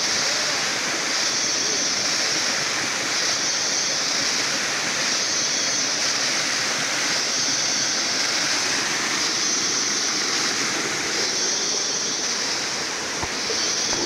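Waterfall pouring steadily into a pool: a constant rushing of water. Above it, a higher hiss swells and fades about every two seconds.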